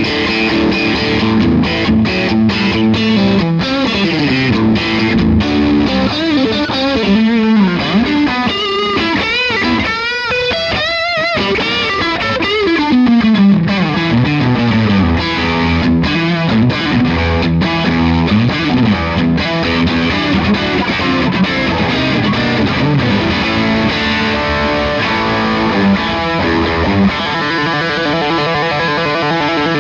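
Electric guitar played through an Iannucci Audio King of Tone overdrive pedal, a Bluesbreaker-style overdrive, giving a mildly distorted tone. Held notes and chords, with bent and wavering notes about eight to twelve seconds in.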